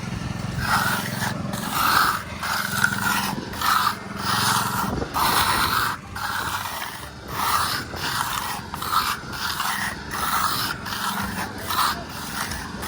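Steel hand trowel scraping over wet concrete at a slab edge, in a long run of short, uneven back-and-forth strokes, about one or two a second, as the edge is finished and blended in.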